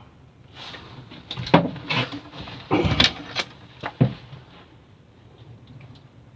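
A landed fish being handled in a boat: a run of knocks and thumps with rustling, starting about half a second in and ending at about four seconds, loudest around the middle.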